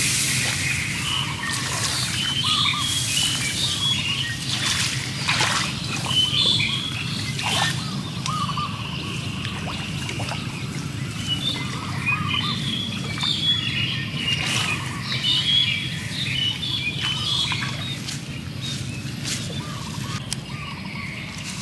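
Small birds chirping and twittering, with water sloshing and splashing now and then as a clay pot is dipped into a shallow ditch and filled.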